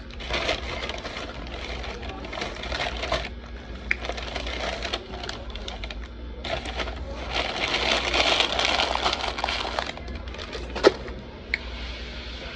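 A paper takeout bag and food wrappers crinkling and rustling in bursts as they are handled and stuffed into the bag, with a sharp tap or knock about eleven seconds in.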